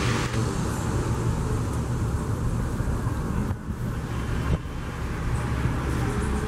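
Twin turboprop engines of an ATR airliner running at low taxi power as it rolls along the runway, a steady low drone with propeller rumble.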